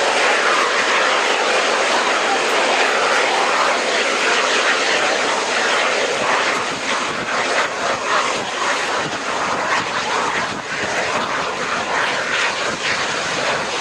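Airbus A350-941 jet engines (Rolls-Royce Trent XWB) running at high power, a loud, steady jet noise, a little rougher and more uneven in the second half.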